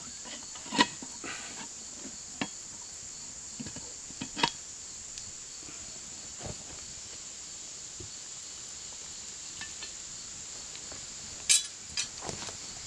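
Cast iron Dutch oven handled with a metal pot hook and set on a fire grate: a few sharp metal clinks and knocks, the loudest about a second in and near the end. A steady high insect drone, like crickets, runs underneath.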